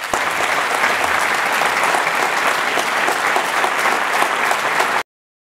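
Audience applauding steadily, dense overlapping claps, cut off abruptly about five seconds in.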